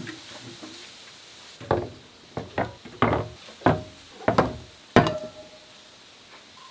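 Metal paint cans and a spray can being set down one after another on a wooden deck: a run of about nine knocks, several with a short metallic ring, the last about five seconds in and among the loudest.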